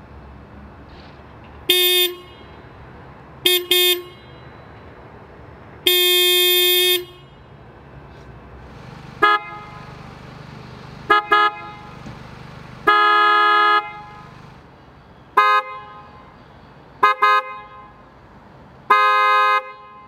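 Car horns sounded in three sets, each a short toot, a quick double toot and a long blast of about a second. The first set is the Toyota GR Yaris's stock horn, the second a PIAA Super Bass dual-tone horn (330/400 Hz), and the third another PIAA dual-tone horn, a little higher in pitch.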